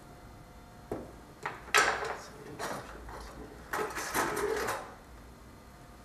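Hands working at the small black case of a BFL ASIC bitcoin miner and picking up and setting down small precision screwdrivers on a wooden workbench: a few sharp clicks and clatters, then bursts of scraping and rattling.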